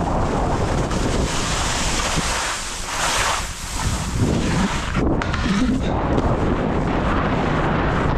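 Wind buffeting the helmet camera's microphone at skiing speed, over the hiss and scrape of skis running through soft spring slush. About three seconds in the hiss turns sharper and brighter for a moment while the low rumble eases.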